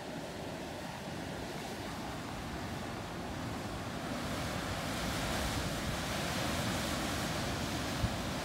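Sea surf breaking and washing against rocks at the foot of a cliff, a steady rush that grows louder over the second half, with some wind on the microphone.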